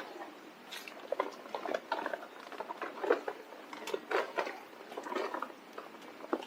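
Irregular light taps and clatter, a few knocks a second with no steady rhythm.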